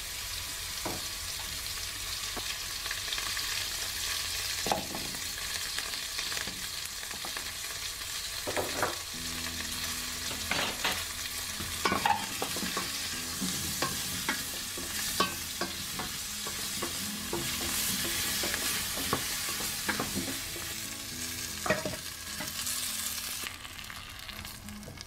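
Onion wedges and garlic cloves sizzling as they fry in oil in a stainless steel pot, stirred with a wooden spoon that knocks against the pot now and then. The sizzle falls away near the end.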